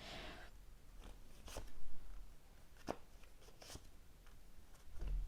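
Tarot cards being handled, with a short swish at the start, then a few light snaps and taps as cards are shuffled and laid down.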